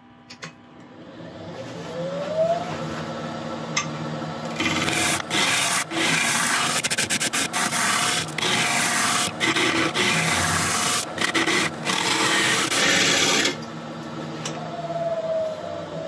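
A Record Power wood lathe spins up with a rising whine, then a turning tool cuts into the spinning monkey puzzle log: loud, rough shearing of wood with brief breaks, stopping about thirteen seconds in. Near the end the lathe winds down with a falling whine.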